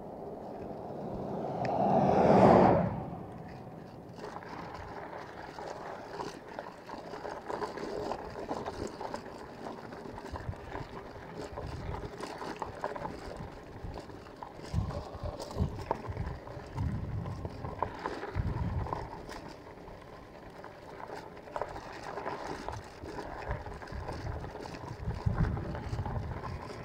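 Fat-tire bicycle riding noise: the 4-inch tyres rolling along the road, with wind buffeting the handlebar-mounted microphone. A louder rushing swell rises, peaks and cuts off about two to three seconds in.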